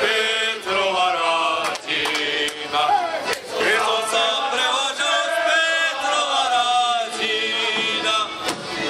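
A group of voices singing a folk song together in loud, chant-like chorus.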